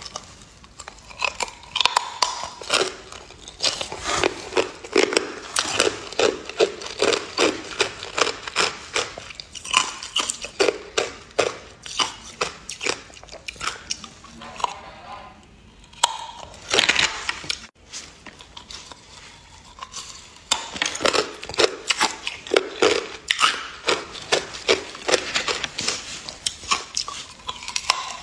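Hard clear ice being bitten and crunched between the teeth: rapid runs of sharp cracking crunches, with brief lulls about halfway through.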